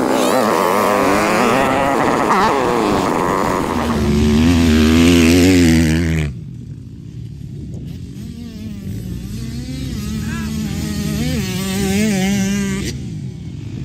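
Dirt bike engines revving up and down as they ride in sand. The first six seconds are loud and close; then, after a sudden cut, dirt bikes are heard revving farther off on a sand track.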